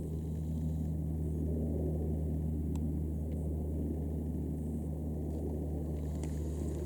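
Aircraft flying over, a steady low drone held evenly throughout, which the observer likens to the drone of an Antonov.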